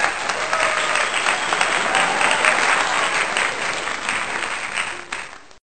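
Applause from a crowd, a dense crackle of many hands clapping, which cuts off suddenly near the end.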